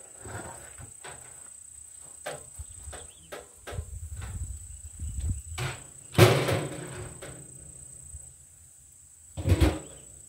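Galvanized steel trash can and its metal lid being handled and moved: a run of knocks and scrapes, with a loud ringing clank about six seconds in and another thump near the end. A steady high-pitched insect drone underneath.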